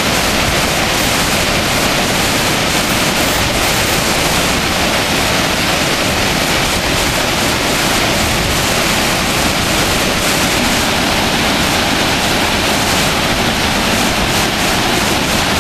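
Mountain creek white water pouring over rocks in a cascade: a loud, steady rush with no breaks.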